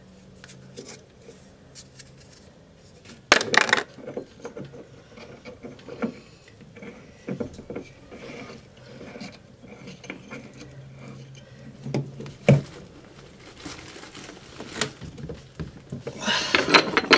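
Hands working plastic toilet fill-valve parts: scattered clicks, knocks and scrapes over a faint steady low hum. There is a louder rustling burst about three seconds in, a sharp knock near the end of the middle, and a quick run of clicks at the close.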